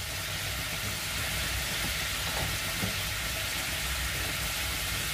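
Garlic cloves frying in melted butter in a stainless steel pan: a steady sizzling hiss.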